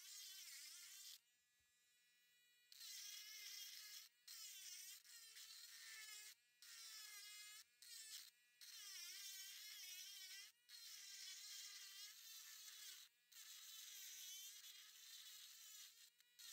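Dremel rotary tool whining as its bit grinds into fossil shell rock, the pitch wavering as it bites under load. The grinding breaks off briefly several times, with a longer lull about a second in.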